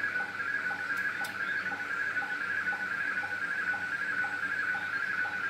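Slow-scan television (SSTV) picture signal from the QO-100 satellite, demodulated by an SDR receiver. It is a steady, warbling tone with a short, lower sync blip repeating about twice a second, one for each picture line being sent.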